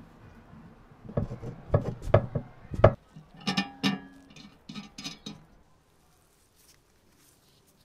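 Metal tricycle parts being handled during assembly as a screw is fitted into the steel frame: a run of knocks and light metallic clinks, the later ones ringing briefly, over about four and a half seconds.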